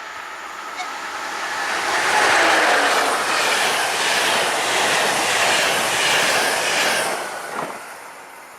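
Train passing at speed, its wheels clattering in an even rhythm over the rail joints. The sound swells as it approaches, holds loud for several seconds, then fades, with a tone dropping in pitch near the end as it passes.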